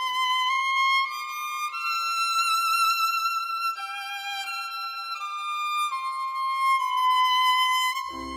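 Background music: a solo violin playing a slow melody of long held notes that climbs and then falls back. Lower instruments come in at the very end.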